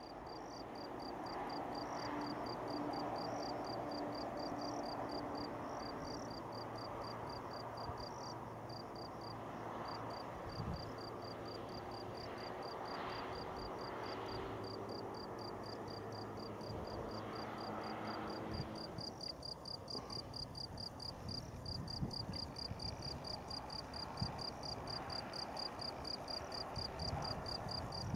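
Crickets chirping in a fast, even train of high pulses, louder in the last third, over a low steady distant rumble.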